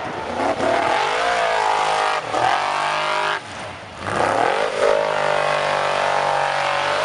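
Off-road race buggy's engine revving hard on full throttle, its pitch rising and falling. It drops off briefly about three and a half seconds in, then is held high near the end.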